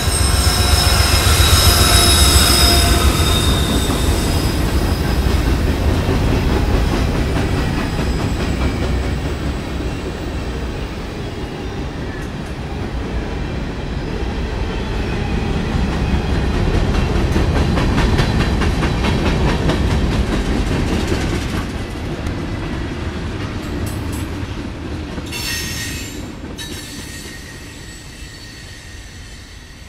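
Norfolk Southern freight train's cars rolling past, with high-pitched wheel squeal in the first few seconds and clicking of wheels over rail joints. The sound fades toward the end as the train draws away.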